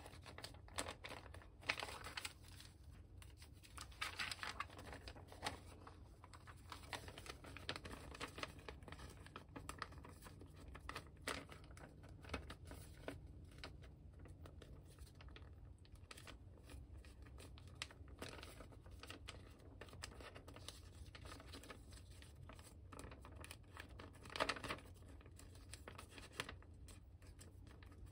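Origami paper rustling and crinkling in the hands as it is folded and creased, in irregular bursts with a few sharp ticks.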